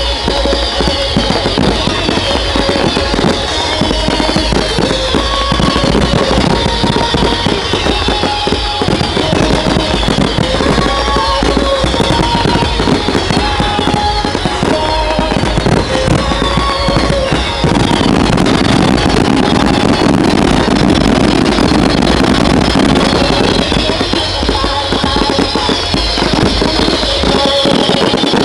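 Fireworks bursting and crackling throughout a display, over pop music played on loudspeakers. The sound grows fuller and louder for several seconds about two-thirds of the way through.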